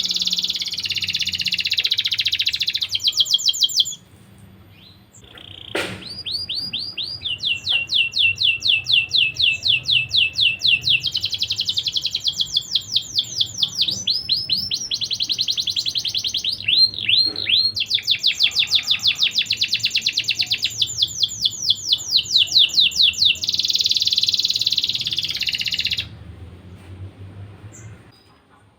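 Domestic canary singing long, rapid trills of quickly repeated chirping notes. The song breaks off about four seconds in, starts again about two seconds later, and stops a couple of seconds before the end.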